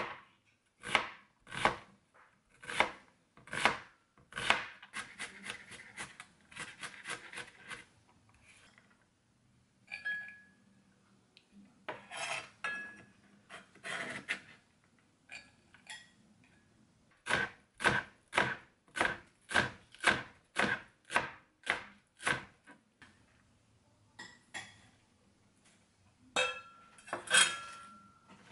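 Chef's knife dicing onion and then green onion on a cutting board: sharp knocks of the blade striking the board. The strokes come in runs of about two a second, with a quicker run and a few pauses.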